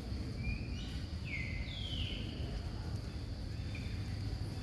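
Outdoor ambience: a steady low rumble and a steady thin high hum, with three short, high animal calls, each gliding down in pitch, about half a second to two seconds in.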